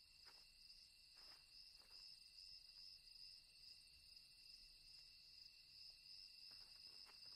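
Very faint night ambience: a steady, high-pitched trill of crickets, with a few soft, faint ticks here and there.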